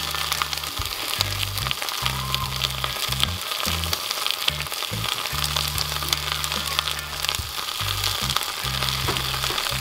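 Chopped vegetables sizzling in melted butter in a stainless steel pan, a steady crackling hiss. Background music with a low bass line runs underneath.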